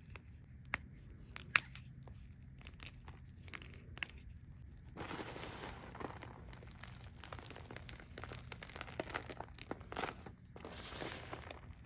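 Close-miked gym chalk crunching and crackling as it is handled and crushed: scattered crisp cracks at first, turning into a dense, continuous crackling crunch about five seconds in.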